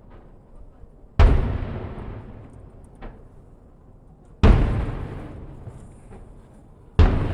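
Aerial firework shells bursting: three sudden loud booms about three seconds apart, each trailing off in a long echoing rumble, with a smaller crack between the first two.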